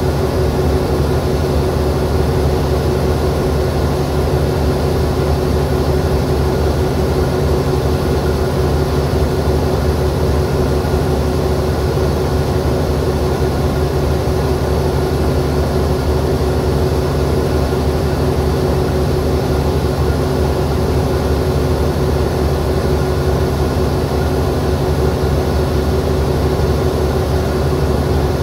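Alsthom AD24C diesel-electric locomotive idling at a standstill: a steady, unchanging low engine hum with a constant tone over it.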